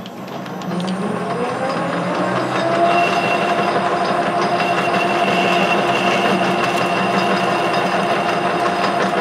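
Clausing 6903 metal lathe running, its spindle coming up to speed in the first second and then holding a steady whine while turning a 3/4-inch hot-rolled steel bar at 850 rpm.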